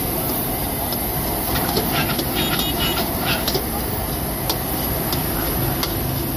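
Steady rushing noise of a gas wok burner under a steel wok, with a metal ladle clacking and scraping against the wok as fried rice is stir-fried; the clacks come in a quick cluster about one and a half to three and a half seconds in, then a few more spaced out.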